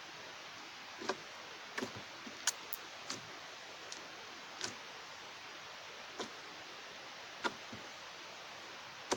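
Putty-like slime being squeezed and pulled by hand, giving scattered short clicks and pops, about a dozen, at irregular intervals over a steady hiss.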